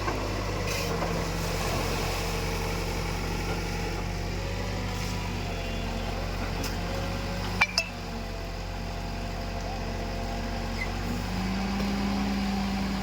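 Heavy diesel engine running steadily, with two sharp knocks in quick succession about two-thirds of the way through; near the end the engine note rises slightly.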